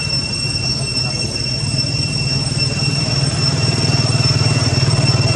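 Steady high-pitched insect drone, typical of cicadas in a tropical forest, sounding as two unbroken whining tones. Underneath is a low, rapidly pulsing hum that grows louder about three and a half seconds in.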